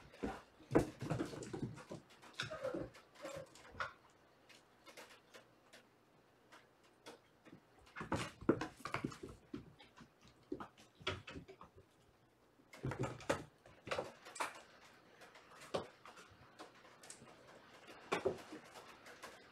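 Kittens scampering and playing on a hardwood floor: quick patters of paws and thumps of jumps and landings, coming in four short flurries.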